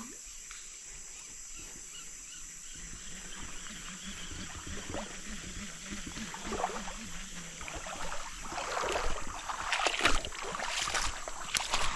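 Rustling and knocking from people moving and handling things, growing louder over the last few seconds with a few sharp knocks. Underneath is a steady high drone.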